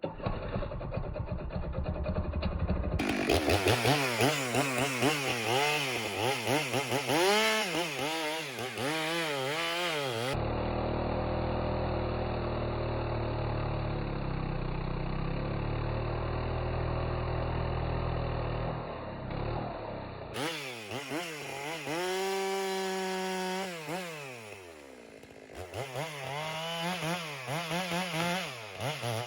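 Chainsaw engine running while sawing a log, revving up and down again and again, with a steadier stretch in the middle. The sound changes abruptly several times, as separate clips are joined.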